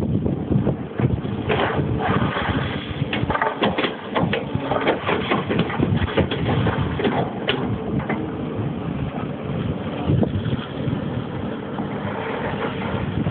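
Komatsu PC340LC excavator running, with a dense run of knocks and rattles over the steady machine noise.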